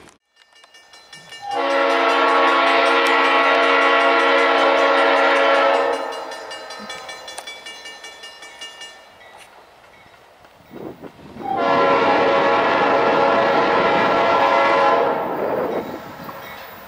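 Diesel locomotive air horn sounding two long blasts, each a steady chord of several notes held about four seconds, the second about ten seconds after the first, with the train's rumble in between.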